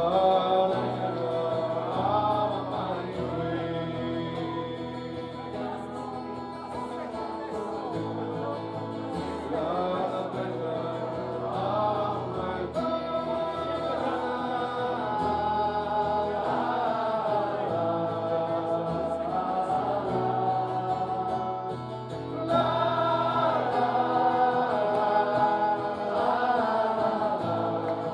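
A slow ballad on strummed acoustic guitar with many voices singing together, a live audience singing along. The singing grows louder about three quarters of the way through.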